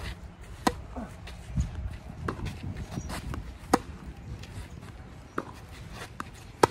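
Tennis rally: rackets striking the ball in a steady back-and-forth, with a sharp pop every second or two and softer ball bounces on the court in between. The loudest pops are the near player's shots, about a second in, about four seconds in and right at the end.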